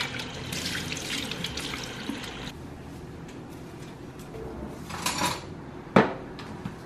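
Water running from a tap into a sink, stopping after about two and a half seconds, followed by a brief clatter and a single sharp knock about six seconds in.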